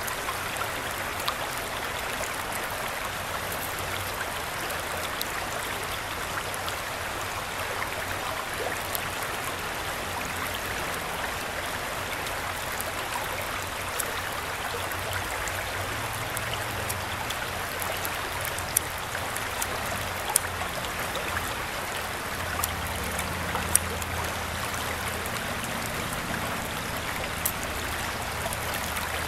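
Shallow creek water flowing and splashing over a rocky riffle: a steady rushing burble, with a few sharper splashes in the second half.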